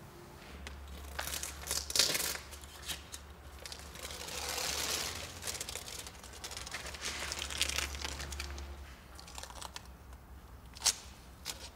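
Crinkling and crackling of adhesive tape and its backing being handled and pressed on by hand, with scattered small clicks and a louder click about two seconds in and another near the end.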